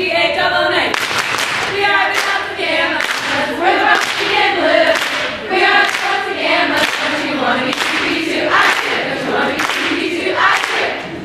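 A group of young women singing a serenade together without instruments, clapping their hands along with the song.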